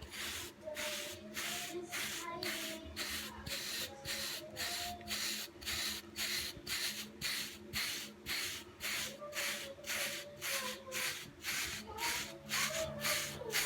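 Hairbrush stroking short hair in a steady rhythm to train 360 waves, a scratchy brushing swish about two to three times a second.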